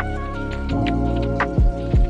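Background music: sustained tones with a deep kick drum near the end.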